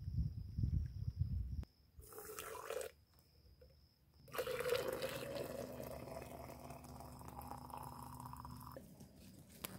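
Steaming hot water poured in a steady stream from an aluminium saucepan into a container, running for about four seconds in the second half. Before that, a low wind rumble and a steady high insect drone cut off just under two seconds in.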